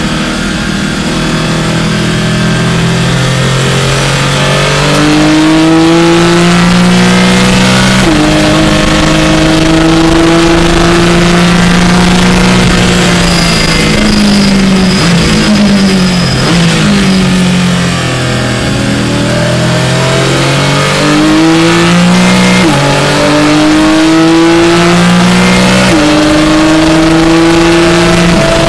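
Porsche 718 Clubsport's flat-six engine, heard from inside the car at full throttle. It climbs in pitch through the gears with quick upshifts about eight seconds in and twice near the end. Around the middle the pitch falls, with short blips as it downshifts under braking.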